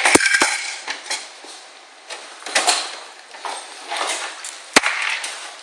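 Screws and metal computer-case parts being handled: light clinking and rattling, with a couple of sharp knocks near the start and another near the end.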